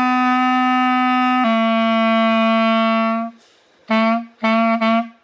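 Solo clarinet playing a short descending phrase: a long held note, then a held note a step lower, followed by four short detached notes.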